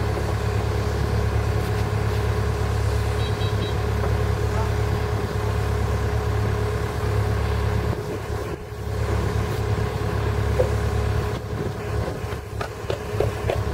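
A steady low mechanical rumble with a faint steady tone above it, dipping briefly about eight and a half seconds in.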